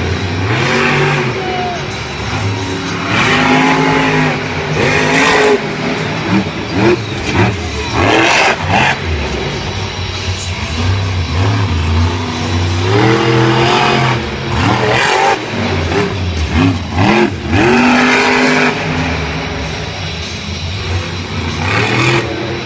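Max-D monster truck's supercharged V8 engine revving hard over and over, its pitch rising and falling in repeated surges, with a few short bursts of noise.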